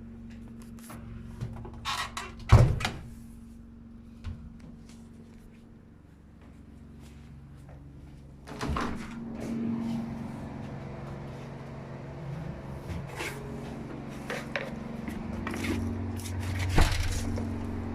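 A 208 cc Ayerbe petrol generator runs steadily with a low hum while it powers a washing machine. Several sharp clunks and knocks break in over it; the loudest comes about two and a half seconds in, and another comes near the end.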